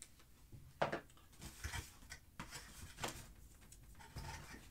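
Cardboard shipping boxes being cut open and handled: scattered light knocks, scrapes and rustles, the sharpest about a second in.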